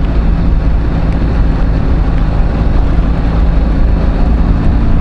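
Motorcycle engine running at a steady cruising speed, with wind and road noise.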